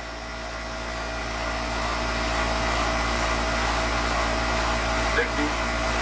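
Air-conditioner condensing unit running, its condenser fan making a steady rush of air that grows louder over the first two seconds and then holds.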